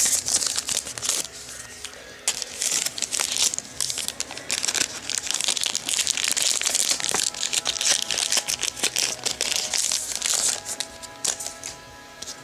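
Foil trading-card pack wrapper being torn open and crinkled, with the cards shuffled by hand; irregular crackling that eases off near the end, when faint steady tones come in.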